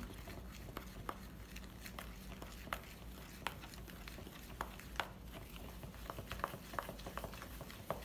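A utensil stirring flour and Greek yogurt in a plastic mixing bowl, making irregular light clicks and taps as a two-ingredient dough is mixed.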